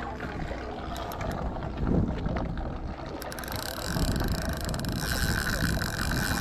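Steady low rumble of a sportfishing boat with wind on the microphone. About three seconds in, a steady mechanical whir of a fishing reel joins in while a large fish is being fought on the line.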